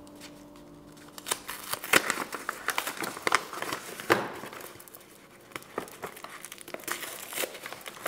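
A chocolate bar's wrapper being torn open and crinkled: a quick run of crackles and rustles that is loudest in the first half and sparser near the end.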